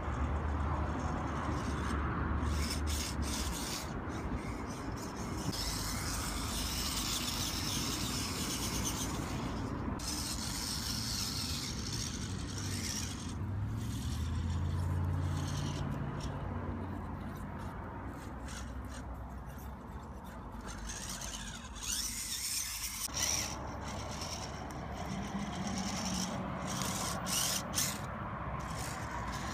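Small RC rock crawler's electric motor and gears whining at crawling speed, the hum shifting in pitch as the throttle is worked, with tyres scraping and clicking over rock. The sound changes abruptly about two-thirds of the way through.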